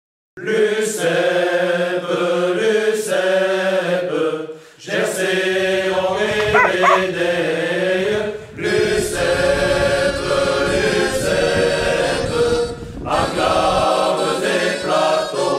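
Voices singing together in a chant-like song, with a sharp beat about every two seconds.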